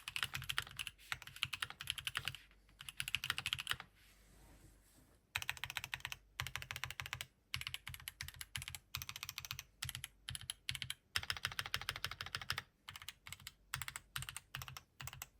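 Fast typing on a Keychron Q5 mechanical keyboard with stock Gateron Luciola switches, an aluminium plate and KeyKobo Artlife keycaps: rapid keystrokes in bursts, with a pause of over a second about four seconds in.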